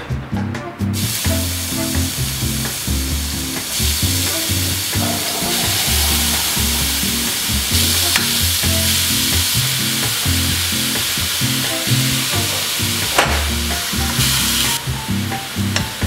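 Chopped onion frying in an aluminium pot, sizzling steadily from about a second in and stirred with a metal spoon; one sharp knock of the spoon on the pot near the end. Background music with a steady low beat plays underneath.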